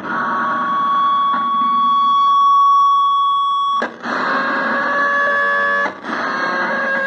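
Handmade piezo noise instrument with ring modulator and fuzz sounding sustained, fuzzy electronic tones. Three held tones, each cut off with a click, the pitch changing after each, about four seconds in and again about two seconds later.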